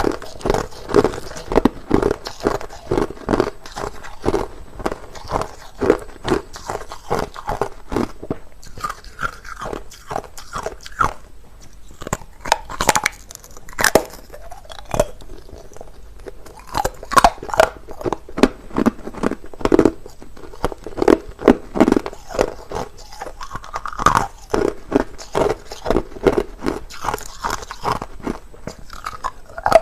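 A person chewing clear, hard crushed ice: rapid, sharp crunches, several a second, with a sparser stretch about halfway through.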